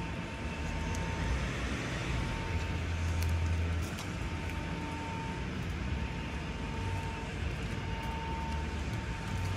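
Steady low rumble and hiss of background noise in a large vehicle storage warehouse. The rumble swells briefly around the middle, and a faint high tone comes and goes.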